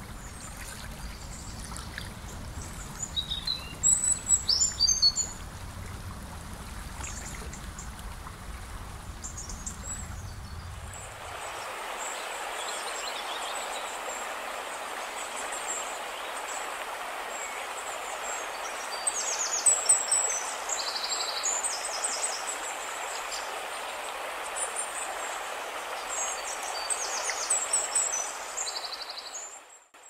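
River water flowing, with a low rumble underneath for the first ten seconds or so. After that it turns to a brighter, steady rush of water pouring over a weir. Birds chirp over it in short bursts, loudest a few seconds in and again after about twenty seconds, and the sound fades out at the very end.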